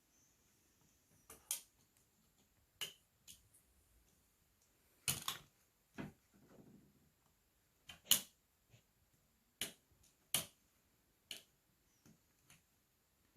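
Irregular sharp clicks and taps of small tools against the plastic and metal parts of a Xiaomi Redmi 7 smartphone being taken apart, about a dozen over the stretch.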